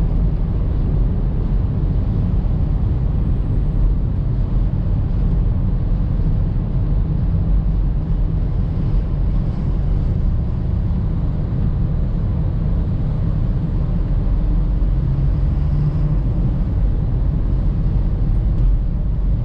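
Steady low rumble of tyre, road and engine noise inside a moving car's cabin, driving through a road tunnel on a slightly rough road surface.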